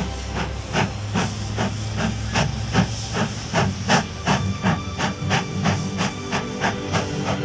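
Steam locomotive chuffing steadily, with a hiss of steam and about five exhaust beats a second.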